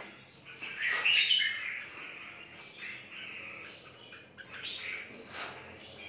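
Caged birds in an aviary chirping and calling, with a louder burst of calls about a second in.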